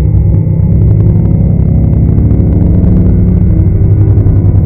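Deep, rumbling monster growl sound effect for a fictional kaiju, loud and continuous, with a fast rough pulsing texture and a slowly shifting pitch.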